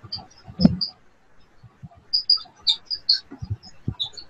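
Scattered short, high chirps, coming in a quick cluster a couple of seconds in, with a few soft low thumps between them.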